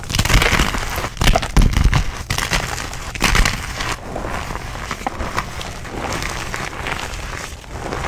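Blocks of gym chalk crunching and crumbling as bare hands break and squeeze them, a dense crackle of grit. The loudest crunches come in the first three seconds or so, then a softer, steadier crunching of powder.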